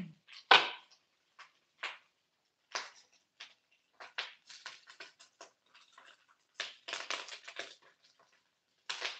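Pork pieces frying in hot oil in a wok, crackling and popping irregularly, with a quick cluster of pops near the end.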